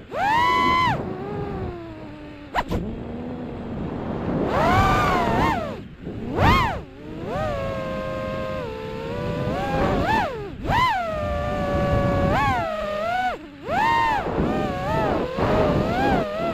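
A small vehicle's engine revving hard again and again, its pitch climbing and dropping back with each burst of throttle, with brief drops in sound between some bursts.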